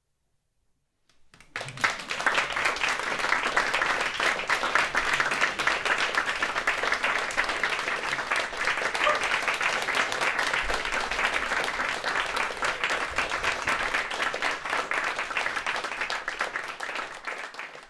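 A brief silence, then about a second in an audience breaks into applause, dense steady clapping that thins out near the end.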